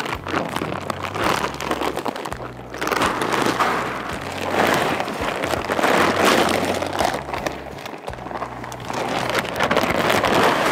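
Bagged pig feed pouring from a sack into a trough feeder, a dense rattling hiss that builds about two and a half seconds in and keeps going as the bag is tipped.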